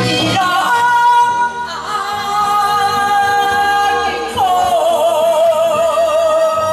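Karaoke singing of an enka song over a backing track: a singer holds long notes, the last one sliding down about four seconds in and wavering with vibrato.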